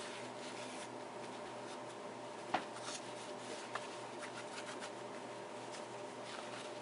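Quiet room hum with a few small clicks and light rubbing from hands handling a DSLR camera body.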